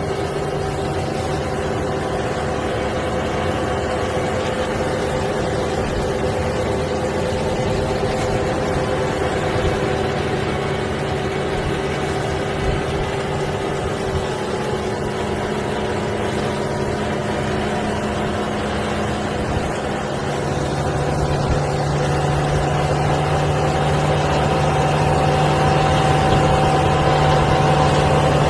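Tractor diesel engine running steadily while it works a field with a soybean seeder. About two-thirds of the way in, the engine note shifts and grows louder.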